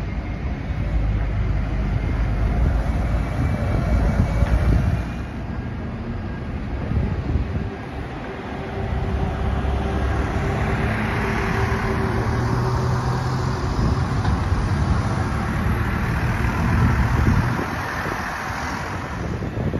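Single-deck buses' engines running as they turn and pull away, amid street traffic: a heavy low rumble for the first few seconds, then after a short lull a second bus's engine hum rises and passes, fading near the end.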